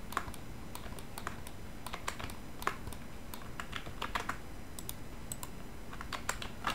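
Irregular clicking of computer keyboard keys and a mouse as 3D modelling software is operated, with a faint steady low hum underneath.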